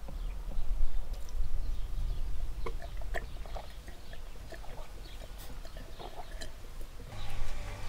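Milk being gulped and swallowed from glasses, a few short separate swallows over a steady low rumble.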